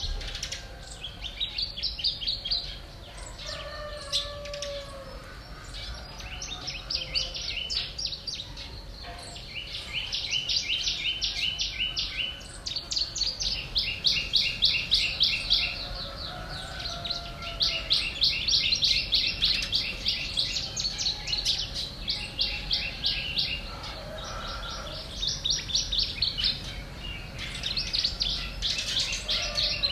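Songbirds chirping in rapid trills of evenly repeated high notes. The trills come one after another, each a second or two long, almost without pause, with a few fainter lower calls in between.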